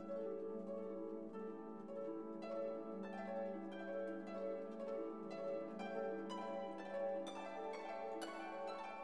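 Background music: plucked harp-like notes over a sustained low tone, with gentle repeated phrases.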